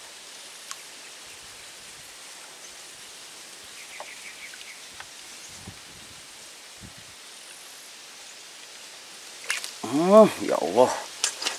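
Quiet open-air ambience over calm water, a steady faint hiss with a few small clicks. About ten seconds in, a man gives a drawn-out wordless exclamation that rises and falls in pitch.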